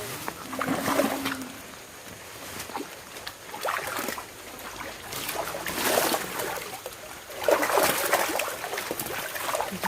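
Water splashing and trickling, in several louder bursts: around one second in, around four and six seconds, and a longer spell near eight seconds.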